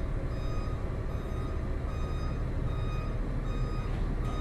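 A vehicle's reversing alarm beeping steadily, a short pitched beep about every second, over a steady low engine rumble.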